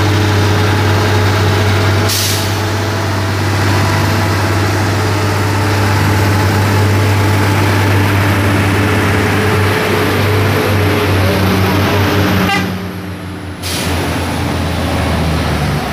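Heavy diesel truck engines running hard under load as a tow truck hauls a loaded Mercedes-Benz log truck, which cannot climb the slippery muddy road on its own, up the slope on a cable. Two short hisses, about two seconds in and near the end, and the engine noise drops somewhat near the end.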